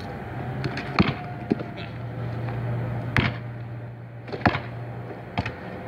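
Basketball thumping as it is bounced and caught on outdoor pavement: several sharp, irregular thumps, over a steady low hum.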